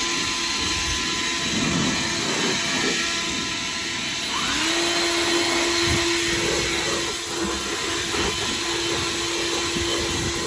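Blower air blasting loose, damp hay and dust out of a hay baler: a loud, steady rush with a hum that rises in pitch about four and a half seconds in and then holds.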